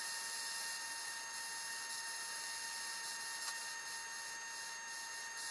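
Faint steady electrical hiss with several thin, steady high whining tones from the powered aircraft indicator's 400 Hz servo motors and supply, as the servos drive the needle and the counter. There is a faint tick about halfway through.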